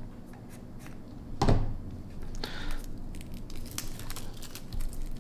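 Clear plastic shrink-wrap on a small cardboard knife box being slit with a folding knife's blade and peeled off by hand, crinkling and tearing. There is one louder tear about a second and a half in, then a run of small crackles.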